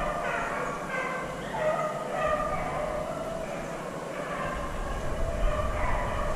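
A pack of beagles baying and yelping while running a rabbit, several voices overlapping without a break.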